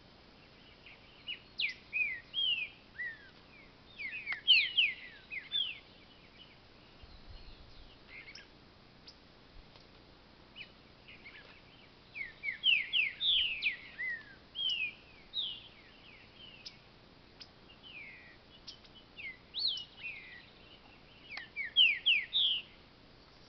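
Green-winged saltator (trinca-ferro) singing: three spells of quick, clear whistled notes, most of them falling in pitch, with pauses of several seconds between the spells.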